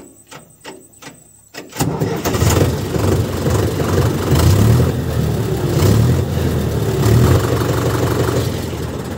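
A few sharp clicks, then about two seconds in a diesel tractor engine starts and runs loudly, its loudness swelling and easing.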